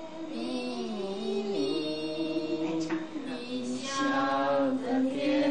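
Women singing a slow melody, holding long notes that slide from pitch to pitch, growing louder about four seconds in.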